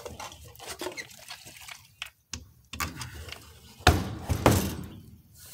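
Gasoline pouring and dripping out of a chainsaw's fuel tank into a small carton, irregular trickling with a louder gush about four seconds in.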